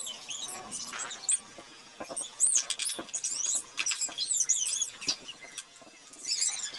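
A ladle scraping and clicking against a metal pan of simmering fish stew, with many high chirps and squeaks throughout.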